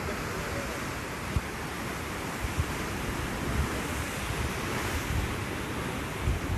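Sea waves washing onto the shore, a steady rush of surf, with wind buffeting the microphone in low irregular thumps.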